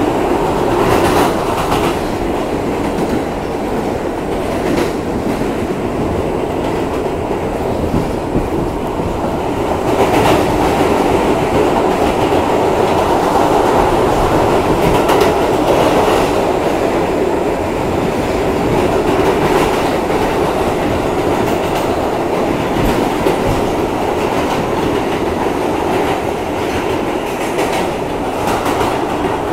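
New York City subway car running through a tunnel, heard from inside the car: a steady, loud rumble of wheels on rail, with scattered clicks as the wheels cross rail joints.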